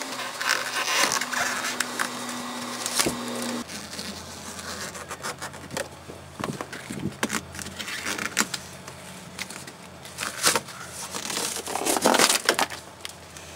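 The brittle, cracked vinyl covering of a Porsche 944 dashboard being peeled off the foam underneath, crackling and crinkling in short bursts, loudest about twelve seconds in. For the first few seconds a heat gun runs with a steady hum.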